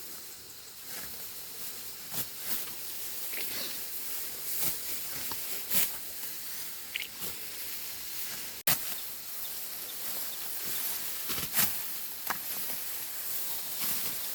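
Outdoor ambience: a steady high hiss with scattered short rustles and knocks like footsteps or handling. It breaks off abruptly for an instant about two-thirds of the way through.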